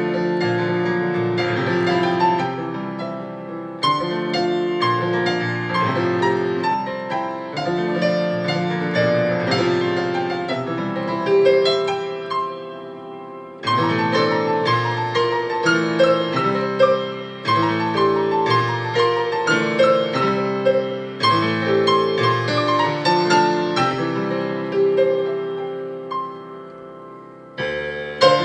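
Solo piano played on a console digital piano: a flowing melody over rolling chords, in phrases that swell and fade away, dying down about halfway through and again near the end before the next phrase begins.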